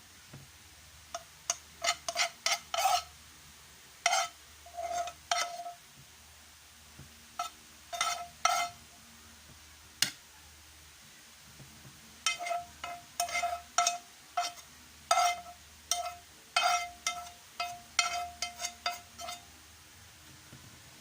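A metal utensil clinking and scraping against a metal cooking pot as food is stirred. It comes in bursts of quick strikes, each with a short ringing tone, with a long run of strikes in the second half.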